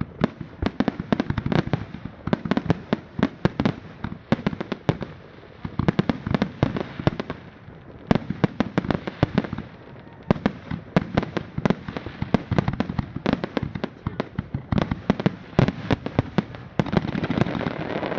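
Fireworks display: rapid volleys of sharp bangs and crackling reports, many a second, coming in clusters of a second or two separated by brief lulls.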